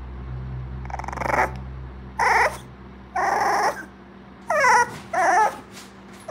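Young bulldog puppy giving about five short whimpers and grunts, roughly a second apart, the last two wavering whines.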